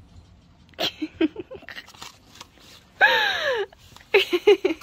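Non-word human vocal sounds: a few short sounds about a second in, a loud falling cry about three seconds in, then short choppy syllables near the end.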